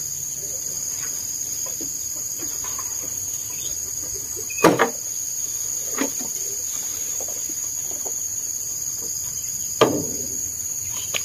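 Steel shovel scooping sheep manure and knocking against a wheelbarrow tray: three sharp knocks, the loudest near the middle and near the end. Insects chirr steadily and high-pitched throughout.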